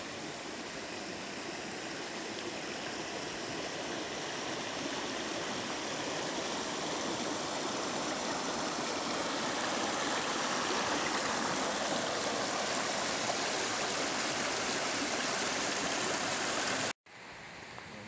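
Shallow river water rushing and splashing over stones in a small riffle, a steady noise that grows gradually louder toward the middle. It cuts off suddenly near the end to a quieter hiss.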